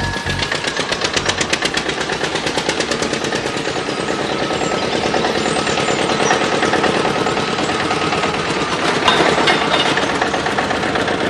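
Old tractor engine chugging with a rapid, even knock as it drives slowly closer, growing a little louder.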